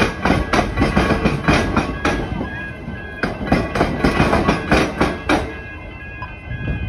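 Siemens Nexas electric train's wheels clattering over the diamond crossings where the railway crosses tram tracks: a rapid, uneven run of sharp clacks that stops about five seconds in as the last car clears. Under it, a steady high ringing of the level crossing bells.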